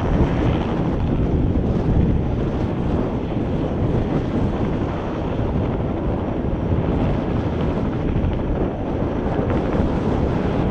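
Light two-bladed helicopter flying low, its rotor and engine running steadily.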